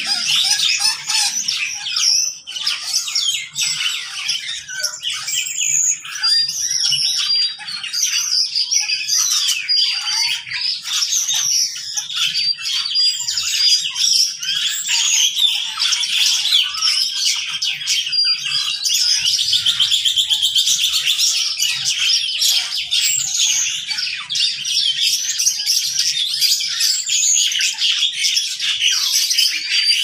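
Many caged birds of mixed species, including lovebirds and starlings, chirping, whistling and squawking all at once in a dense, overlapping chorus. A rapid chattering trill stands out about two-thirds of the way through.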